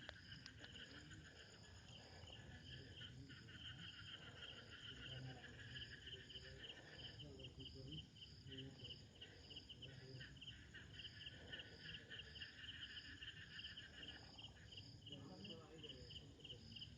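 Crickets chirping faintly in a steady, evenly repeating pulse, with a continuous trill underneath.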